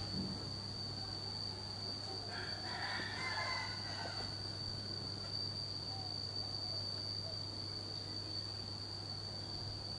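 A rooster crowing once, about two seconds in, over a steady thin high-pitched whine and a low hum.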